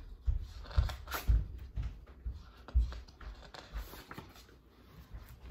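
Hardcover picture book being handled and opened: a string of irregular soft thumps and knocks with light rustling as the cover is turned back.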